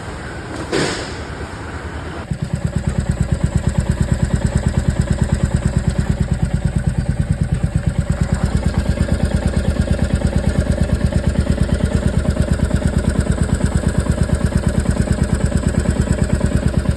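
Royal Enfield Meteor 350 single-cylinder engine starting after a click about two seconds in, then idling with an even, rapid pulse. The engine carries a metallic ticking that the owner takes for tappet noise from improper valve clearance.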